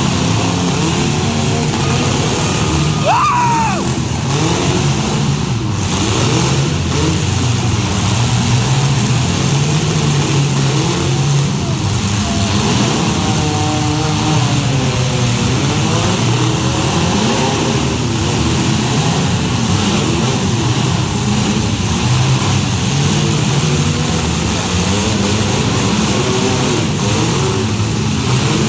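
Several compact demolition-derby car engines running and revving, rising and falling in pitch, with a brief high squeal about three seconds in.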